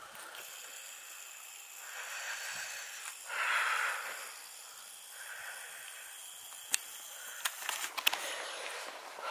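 A person breathing close to the microphone, soft breaths about a second long every couple of seconds, with a few sharp clicks of camera handling near the end.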